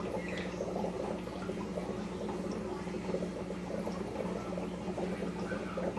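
Aquarium water bubbling steadily, a dense, irregular fizz, over a steady low hum.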